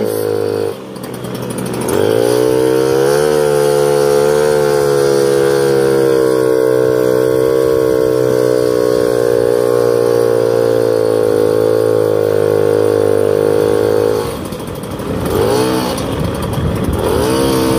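Moped engine running while riding. It drops off about a second in, then picks up with a rising pitch and holds a steady note. Near the end it eases off, its pitch going up and down.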